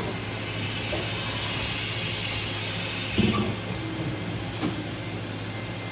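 Powered-up Fadal VMC5020A CNC vertical machining center humming steadily, with a high hiss that stops about three seconds in, at the moment of a single clunk, and a few light clicks.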